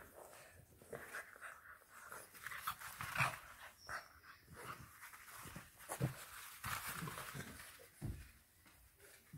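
Two English bulldog puppies tussling over a chew, breathing hard with short irregular bursts of snuffling and scuffling, and a few sharp knocks.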